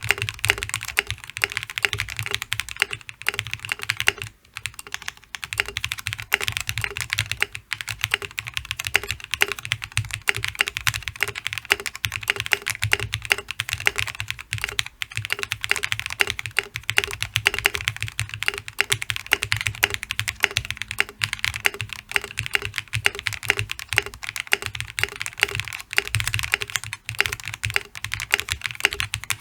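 Fast, continuous typing on a Space65 custom mechanical keyboard with lubed Durock POM switches on an FR4 plate, case foam and Infinikey Monochrome keycaps: a quick run of keystrokes, each bottoming out and springing back. There is a brief pause about four seconds in.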